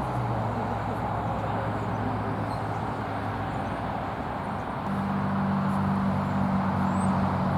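An engine running steadily with a low hum; about five seconds in its pitch steps up and it gets a little louder.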